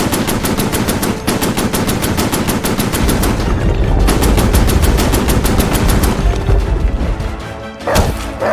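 Rapid machine-gun fire, about ten shots a second, stopping about six seconds in, with a deep rumble under its second half. A short sweeping sound comes near the end.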